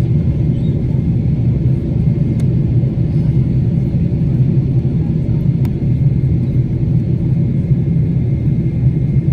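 Steady low rumble of jet engine and airflow noise inside the cabin of a Boeing 777-300ER in flight, its GE90-115B engines running steadily, with a faint steady high tone over it.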